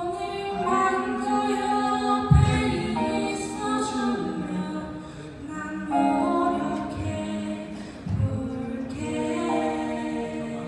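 Several singers through microphones and a PA singing a slow passage in close harmony, with long held notes and little or no accompaniment. A few low thumps come in, the loudest about two seconds in.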